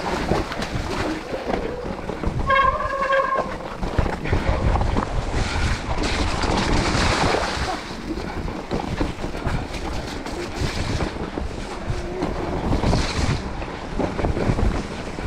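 Specialized Turbo Levo electric mountain bike ridden down a wet, muddy forest trail: the rumble of tyres on mud and roots and the bike rattling over bumps, with wind buffeting the camera microphone. A short high squeal sounds about two and a half seconds in.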